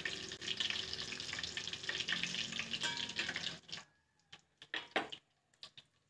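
Egg sausages frying in hot oil in a wok: a steady sizzling hiss with crackles, which stops suddenly about two-thirds of the way through, leaving a few faint clicks.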